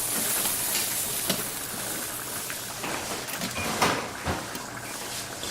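Restaurant kitchen ambience: a steady sizzle of food frying in a pan, with a few light knocks and clinks of utensils, the loudest about four seconds in.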